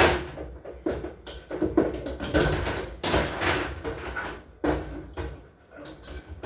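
A rapid series of knocks, clatters and scrapes, like objects, doors or drawers being handled and moved about, loudest at the start and again about one to three seconds in.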